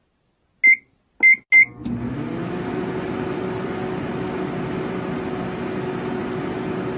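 Microwave oven keypad beeping three times, then the oven starting and running with a steady hum.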